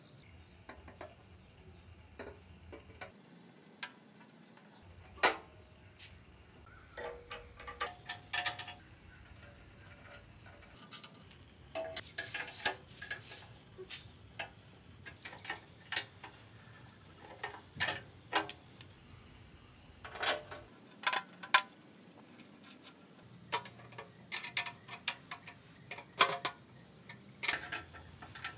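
Irregular light clicks and knocks from hand work on bicycle parts, in short clips separated by cuts where the background hiss changes.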